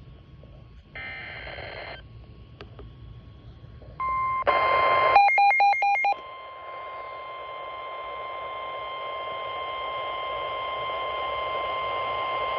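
Emergency Alert System broadcast over a radio receiver with static hiss. About five seconds in, a short, loud burst of rapid digital data tones plays, then the steady 1050 Hz weather-warning alert tone sounds, getting gradually louder.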